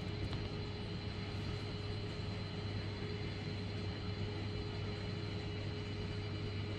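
Steady hum of a large reef aquarium's running equipment: a low constant hum with a couple of faint steady tones above it, over an even soft hiss of circulating water and pumps.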